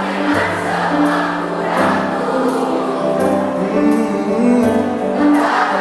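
A crowd singing along together like a choir over a live pop band, with a steady drum beat.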